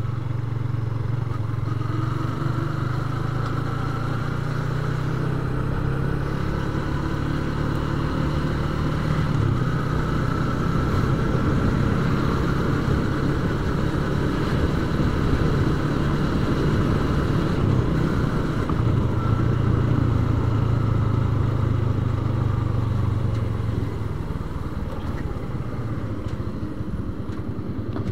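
Yamaha Vixion's single-cylinder four-stroke engine running steadily as the motorcycle rides along, a little louder through the middle and easing off near the end.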